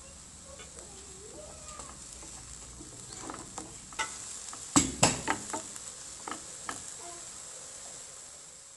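Chopped onion and garlic sizzling in olive oil in a nonstick frying pan. A wooden spatula stirs them, knocking and scraping against the pan several times in the middle, loudest about five seconds in.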